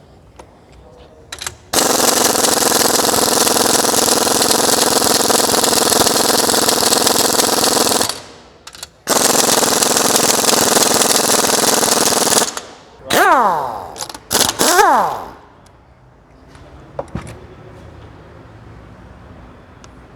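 Power impact wrench hammering in two long bursts, then two short bursts whose whine falls in pitch as the tool spins down, undoing the fasteners to remove a car's shock absorber.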